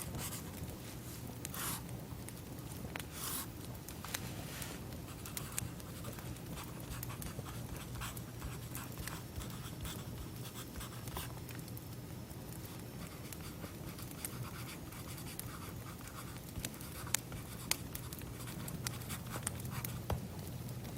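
Soft scratching and rustling with scattered small clicks over a steady low hum.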